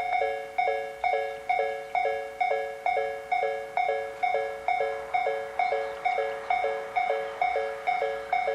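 Japanese railway level-crossing alarm ringing: an electronic bell striking a ringing chime in a steady, even rhythm of about two to three strikes a second. A faint rushing noise rises under it in the second half.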